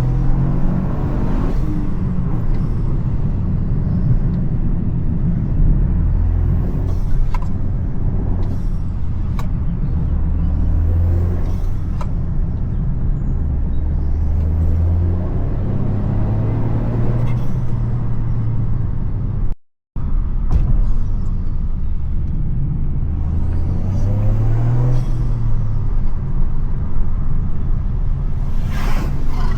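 Toyota GR Yaris's turbocharged 1.6-litre three-cylinder engine running under load, its pitch climbing and dropping several times as the revs rise and fall. The sound cuts out completely for a moment about two-thirds of the way in.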